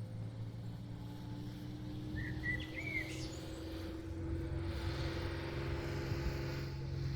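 Small birds chirping a few short calls over a steady low hum.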